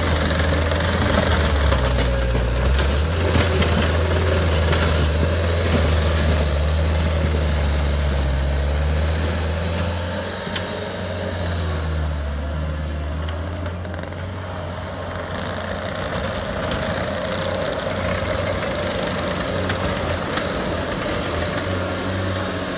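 Cat 246B skid-steer loader's diesel engine running under load as the machine drives and works dirt. The engine note shifts a couple of seconds in and drops a little about ten seconds in.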